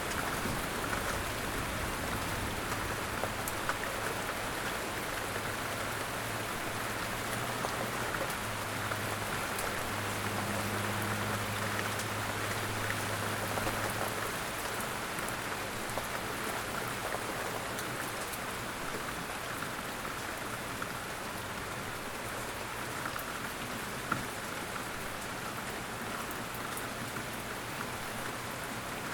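Steady rain falling, with an even hiss and scattered single drops ticking louder. A low hum underneath fades out about halfway through.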